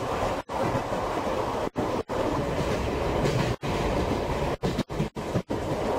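Tobu 5700 series electric train running, heard from inside the passenger car as a steady rumble and rattle. The sound is broken by several brief gaps where it cuts out for an instant.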